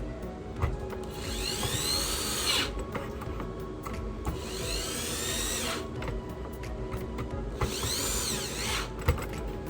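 A small electric screwdriver whirring in three short runs of about a second and a half each, its pitch rising and then falling in each run, over background music. There are a couple of sharp clicks between the runs.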